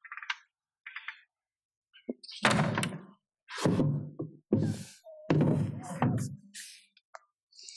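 Wooden wardrobe doors and lower drawers banging and thunking as someone rummages through them: a couple of light clicks, then four heavy knocks in a row.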